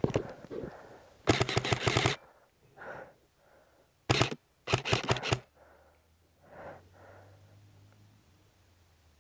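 Airsoft gun firing rapid bursts on full auto: a burst of under a second about a second in, then a short burst and another near the middle, with quiet gaps between.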